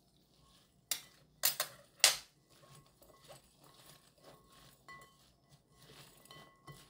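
Gloved hands tossing thick-julienned Korean squash strips with salt in a glass bowl: the strips rustle and click against each other and the glass. Three sharp clicks come in the first two seconds or so, then softer, irregular clicking.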